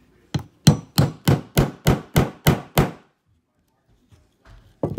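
A 16 oz claw hammer striking a two-piece grommet-setting tool, nine sharp blows in an even run of about three a second, setting a metal grommet through T-shirt fabric. One more blow comes near the end.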